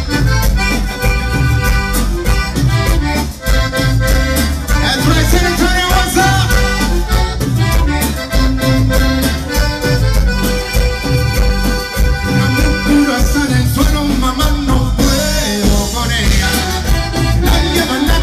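Live Tejano band playing a dance number, with a button accordion carrying the melody over electric bass and drums in a steady beat.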